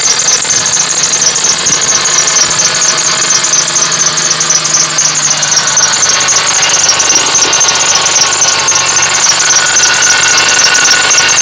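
A 1999 Ford Taurus's 3.0-litre Vulcan V6 running with a steady, rapidly repeating high-pitched squeak from the engine's accessory drive. New belt, idler and tensioner pulleys and alternator have not cured it.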